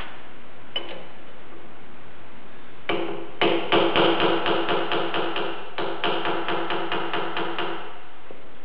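A hammer taps a spanner wrench on the threaded collar of a Bridgeport mill's quill in a quick, even run of ringing metal blows, about four a second, with a brief break midway. This is snugging the collar up against the spindle bearing assembly. A single clink comes about a second before the tapping starts.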